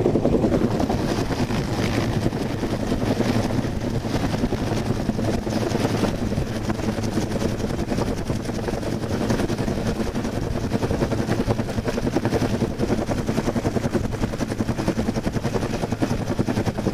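Search-and-rescue helicopter hovering directly overhead during a hoist operation, its main rotor and turbine running with a steady, even rotor beat.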